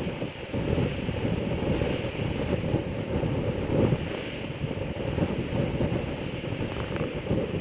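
Blizzard wind buffeting the microphone, a steady rough rumble.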